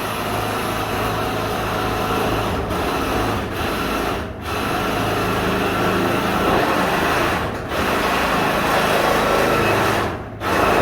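A small motorised power tool running hard in long stretches, stopping briefly and starting again five times, as if the trigger is let off for a moment each time.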